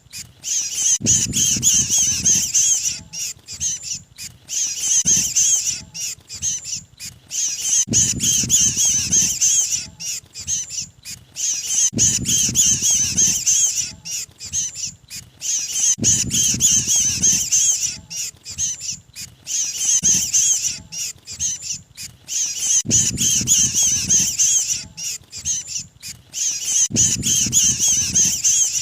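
Looped bird-lure recording of a mantenan's distress calls, the sound of a bird caught and pinched: rapid, high, chattering calls in repeating bursts, with a low rough noise about every four seconds.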